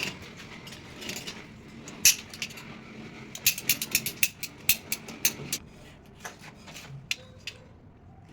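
A run of sharp clicks and clatters of small hard objects being handled and knocked together. There is one loud click about two seconds in and a dense run of them from about three and a half to five and a half seconds in.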